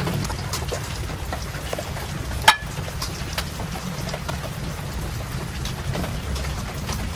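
Hands seasoning a whole red snapper on a wooden cutting board: scattered light ticks of sprinkled grains and fingers rubbing the fish, with one sharp click about two and a half seconds in, over a steady low rumble.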